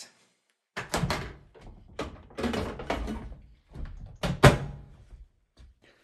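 A countertop microwave's door being worked: a series of knocks and clunks with rustling handling between them, and a sharp thunk about four and a half seconds in, the loudest.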